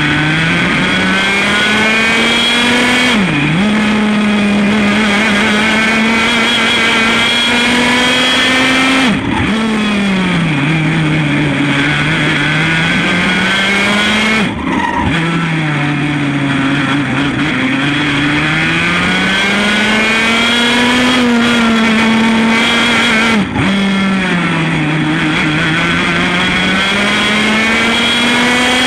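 A 100 cc Formula A kart's single-cylinder two-stroke engine running at racing speed, its pitch climbing and falling through a lap. The throttle is lifted briefly and sharply four times, each a sudden drop in the engine note before it picks up again.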